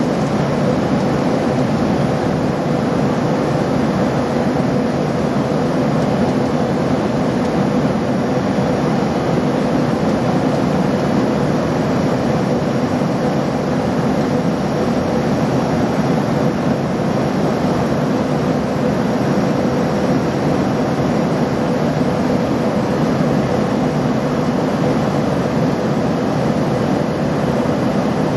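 Steady cabin noise inside an Embraer ERJ-145 regional jet in its climb after takeoff: the drone of its rear-mounted Rolls-Royce AE 3007 turbofans and rushing air, with a steady hum running through it.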